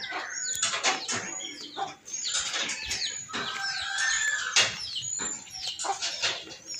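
Birds chirping with many short, swooping high calls, among scattered sharp clicks and knocks.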